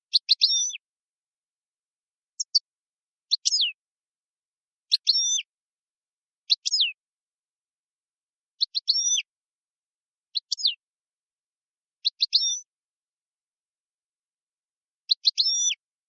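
Caged finch calling: about nine short chirped phrases, each under a second and made of quick sweeping notes, repeated every one and a half to two seconds with gaps between.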